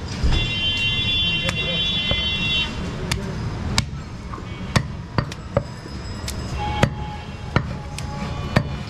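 Heavy meat cleaver chopping goat meat on a wooden log chopping block: about ten sharp chops at uneven intervals, starting about a second and a half in. A steady low rumble of background noise runs under them, with a high steady tone over the first couple of seconds.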